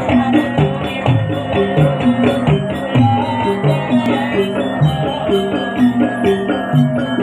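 Javanese jaranan (kuda lumping) accompaniment music: a gamelan-type ensemble of struck pitched percussion playing a steady, repeating pattern, with jingling on the beat.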